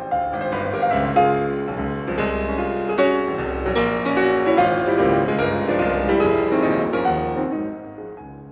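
Background piano music: a flowing run of notes that fades away near the end.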